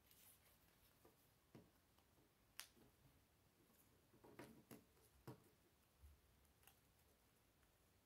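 Near silence, with a few scattered faint clicks and light handling sounds as hands work a paper strip into a small Lego paper crimper.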